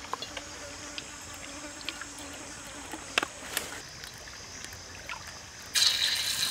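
Stream trickling with a faint insect buzz and a few light crackles from a wood fire under an empty, smoking wok. Near the end a loud sizzle starts suddenly as a ladleful hits the hot wok.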